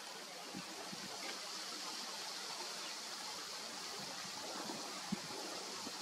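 Steady rushing of gusty wind, with a few short low thumps of wind buffeting the microphone, the sharpest about five seconds in.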